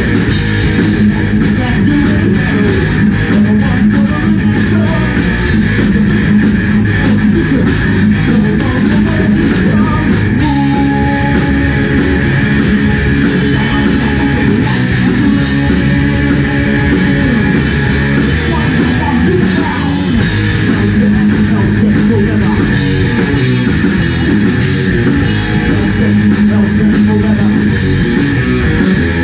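Live rock band playing heavy metal: distorted electric guitars, bass and drum kit, loud and steady throughout.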